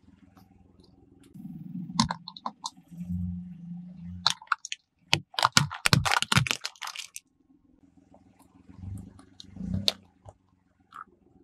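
A car tyre rolling slowly over objects on asphalt: a low rumble of rubber on road, broken by sharp cracks and crunches as things give way under the wheel. About halfway through comes a rapid run of cracking as small plastic tubs are crushed.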